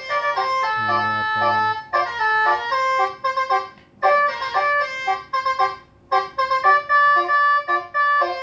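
Electronic telolet horn module playing a melody through a single horn loudspeaker, an organ-like tune of short notes, broken by brief pauses about four and six seconds in.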